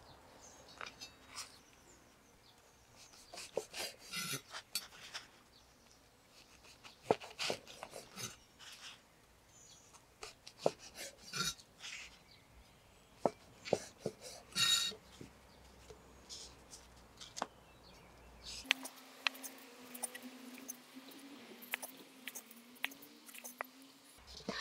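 Kitchen knife cutting the crusts off slices of white bread on a wooden cutting board: irregular crisp cuts through the crust and light knocks of the blade on the board.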